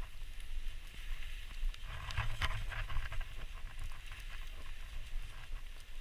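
Skis running through deep powder snow, a steady hiss with small clicks and a low rumble of wind on the microphone; a louder rush of snow about two seconds in.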